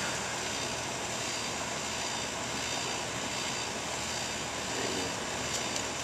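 Outdoor air-conditioner condensing unit running under power: a steady hum from the compressor with the rush of the condenser fan, unchanging throughout.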